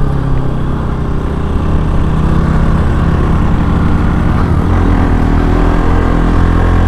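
Bajaj Pulsar NS200's single-cylinder engine running under way, with a steady exhaust note that shifts about halfway through as the throttle or gear changes.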